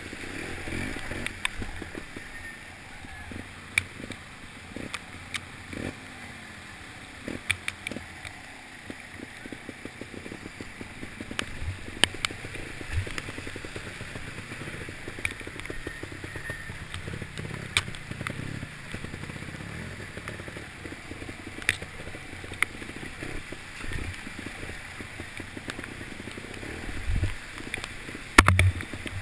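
Trials motorcycle engine revving up and down as it climbs through a rushing stream, over the steady rush and splash of the water, with sharp knocks as the bike hits rocks.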